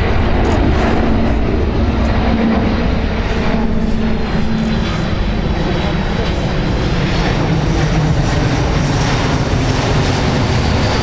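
USAF C-17 Globemaster III's four Pratt & Whitney F117 turbofan engines running loud and steady in a slow, low pass with the landing gear down. About halfway through, a low tone in the roar drops in pitch as the aircraft passes overhead.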